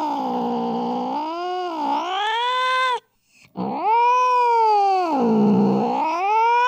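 Domestic cat yowling: a long, drawn-out call that sags in pitch and rises again, breaking off about three seconds in. A second, similar yowl follows after a brief gap.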